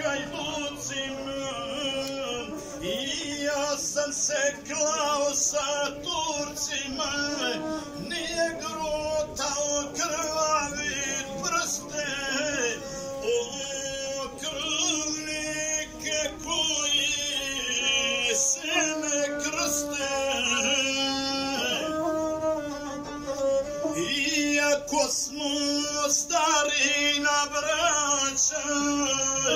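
Gusle, the bowed one-string folk fiddle, played through a microphone and loudspeaker: a steady nasal tone with quick, fluttering ornaments.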